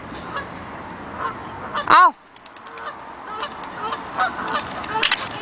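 Birds calling: a single loud call that rises and falls in pitch about two seconds in, then many short calls and clicks.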